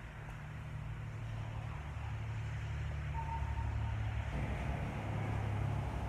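Steady low rumble of a running vehicle engine, with a hiss that grows louder about four seconds in.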